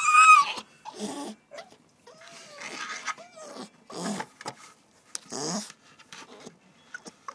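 Staffordshire bull terrier puppy crying to be let back in: a loud, high, wavering whine at the start, then quieter low grumbling moans and huffs.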